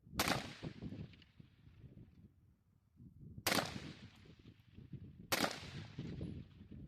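Three gunshots, the first about a quarter second in, then two more roughly three and five seconds in, each shot trailing off in a brief echo.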